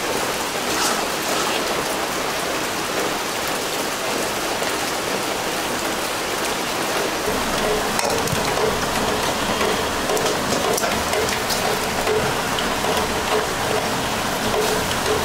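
Steady rain falling, an even hiss that holds throughout, with a faint broken tone joining about halfway.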